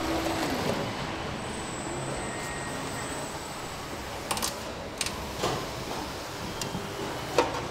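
Car-factory production-line ambience: a steady machine hum and hiss with a few sharp clicks and knocks in the second half, the loudest near the end.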